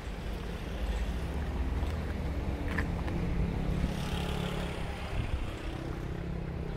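A low, steady engine rumble with a faint humming tone.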